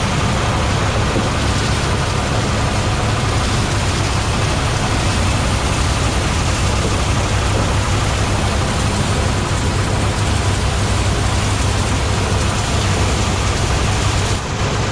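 Engine-driven mobile rice threshing machine running steadily, a low engine hum under a dense, even noise of the threshing.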